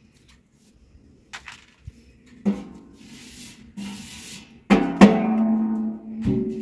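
Large round metal pans knocking and clanging as they are handled. Two sharp strikes about two-thirds of the way in are the loudest, and their metallic ring holds for about a second before another knock.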